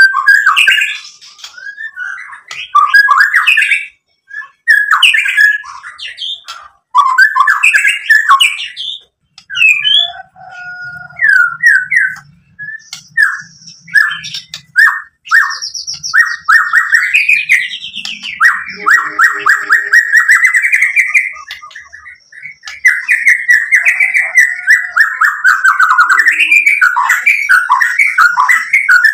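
White-rumped shama singing loudly: varied whistled and chattering phrases, turning in the second half into long, fast rattling trills.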